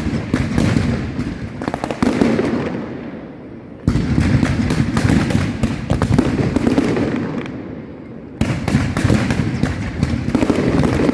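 Fireworks display going off in dense volleys of rapid bangs and crackle. Each volley fades, and a fresh loud one starts suddenly about four seconds in and again about eight seconds in.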